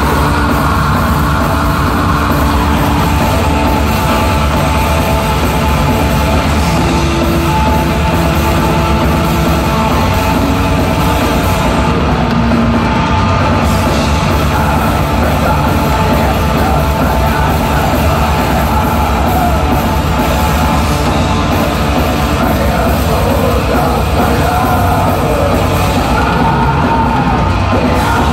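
Death metal band playing live through a concert PA: heavily distorted electric guitars over drums, with harsh growled and yelled vocals. The level stays loud and unbroken.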